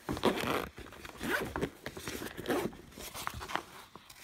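Zipper on the fabric carry bag of a Slime tire inflator being pulled open in several short pulls.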